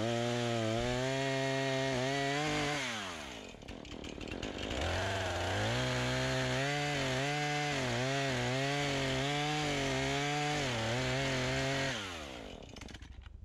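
Two-stroke gasoline chainsaw cutting through a fallen spruce log at high revs, its pitch dipping and wavering under load. About three seconds in the engine winds down, then revs back up about two seconds later and cuts again before winding down once more near the end.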